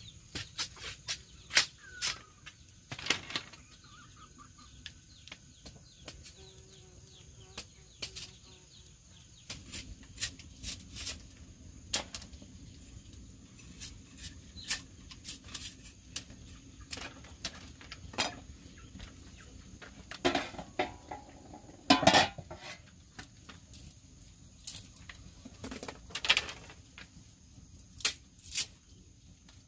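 Chickens clucking among scattered light clicks and knocks, with a louder burst about twenty-two seconds in.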